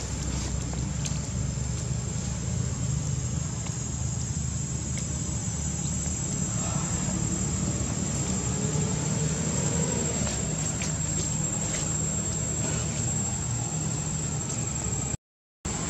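Outdoor ambience: a steady high insect whine over a low continuous hum, with a brief drop to silence near the end.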